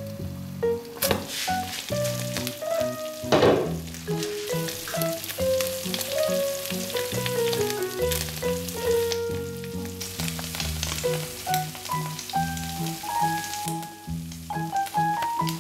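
Rice and melted cheese sizzling in a frying pan over medium-low heat, a steady frying hiss under a light melody of background music. A couple of knocks sound in the first few seconds.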